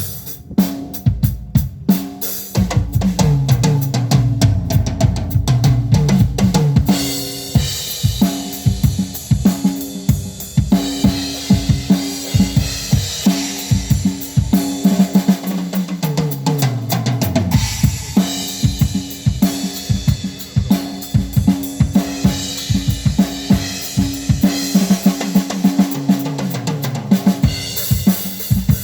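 Drum kit played live at a sound check: kick drum, snare with rimshots and cymbals in a steady driving beat. Low sustained notes move underneath.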